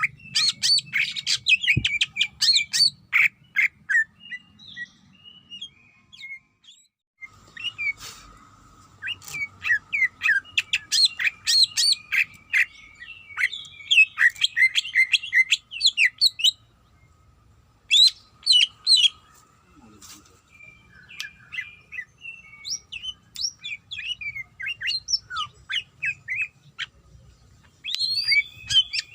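Cucak ijo (greater green leafbird) singing in quick bursts of sharp chirps and whistled notes, with short pauses about six, seventeen and twenty-seven seconds in. A faint steady tone runs under the song for most of the middle.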